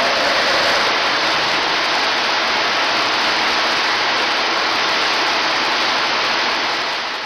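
Steady, loud rushing noise with no rhythm, beginning to fade out near the end.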